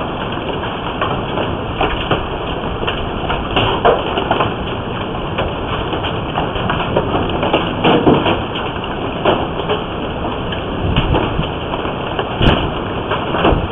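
Hail storm with heavy rain pounding the house and vehicles, a dense steady clatter with many irregular sharper impacts, heard through a surveillance camera's microphone. One sharp crack stands out near the end.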